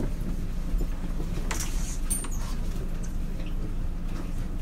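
Steady low rumble inside a JR West 223-series electric train's motor car, with scattered faint clicks and a brief hiss about a second and a half in.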